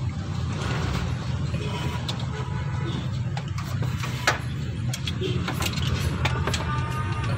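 A steady low motor drone with scattered sharp clicks and clinks of hand tools working on the newly fitted car A/C compressor, one louder knock about four seconds in.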